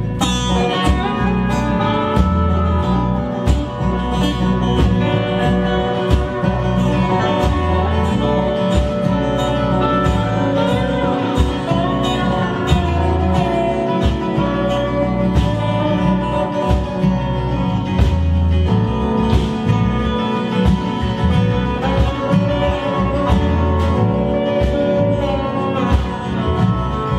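Live country-folk band playing an instrumental section: drums keeping a steady beat under bass and several guitars, among them acoustic guitar and Weissenborn lap slide guitar, with keyboard.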